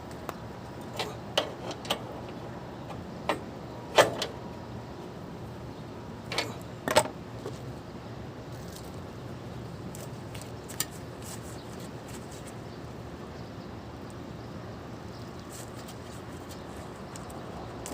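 Scattered sharp clicks and knocks of hard objects, several in the first seven seconds and one more near eleven seconds, over a steady low background noise.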